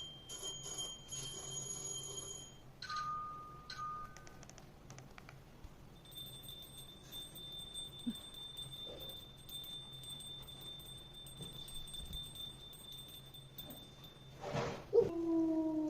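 Golden retriever whining in thin, high-pitched squeaks: a few held notes early on, then one long steady high whine, ending in a louder, lower whine that slides down near the end.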